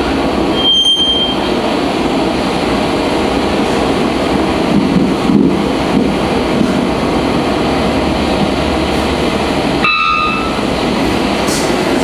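Three-wattled bellbird calls played back from a video through room speakers, over a loud steady noisy rush. A short, clear, high whistled note comes about half a second in, and a brief call of several tones comes near the end.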